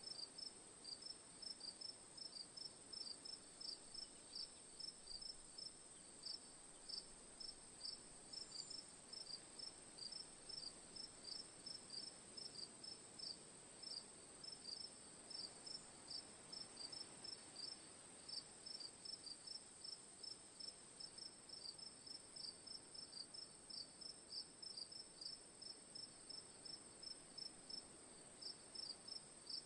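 Crickets chirping faintly in a steady rhythm, two to three short chirps a second, over a continuous high-pitched insect trill.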